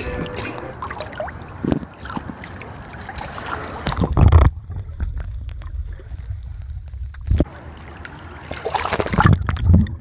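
Swimming-pool water sloshing and gurgling around a camera held at and under the surface, a steady muffled rumble with louder surges about four seconds in and again near the end.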